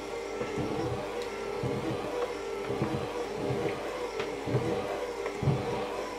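Electric hand mixer running steadily with dough hooks, kneading stiff brioche dough in a glass bowl. Its motor makes a steady hum, under irregular low thuds as the hooks work the dough.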